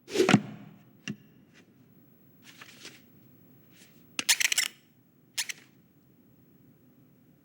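Animated-film foley with no dialogue or music: a handful of separate short sounds, a thump at the start, a sharp click about a second in, a faint rustle, then a louder brief rustling burst about four seconds in and another short one about a second later, with quiet between.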